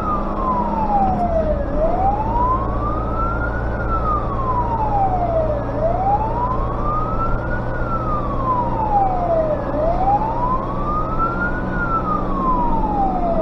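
A fire engine's wail siren rising and falling slowly, about one cycle every four seconds. It is heard from inside the cab of a Tatra fire truck, over the truck's engine running on the road.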